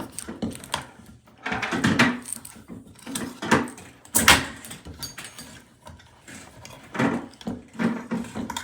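Shower head with plastic fittings being unscrewed from the shower arm: irregular clicks, knocks and short scrapes of plastic turning on the threads and being handled.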